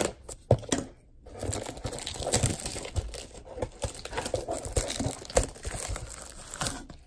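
Plastic shrink wrap crinkling and tearing as it is peeled off a cardboard trading-card box: an irregular run of crackles with a few sharper snaps.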